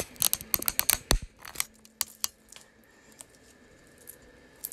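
Handling noise from the recording phone or camera being moved and repositioned: a quick run of sharp clicks and knocks over the first two and a half seconds, then mostly quiet, with one more knock at the very end.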